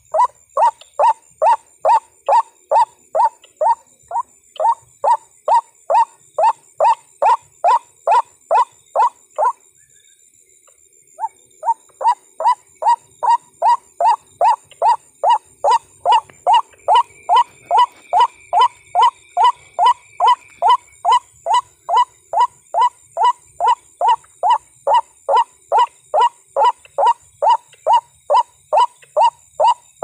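White-breasted waterhen calls played back as a hunter's lure: an unbroken run of identical croaking notes, about two and a half a second, that stops for about a second and a half after some ten seconds and then starts again.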